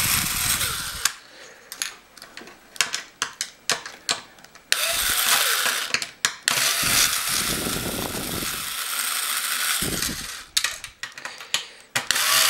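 Cordless electric screwdriver running in several bursts as it backs out small screws from a plastic clock lid, with short sharp clicks in the gaps between runs.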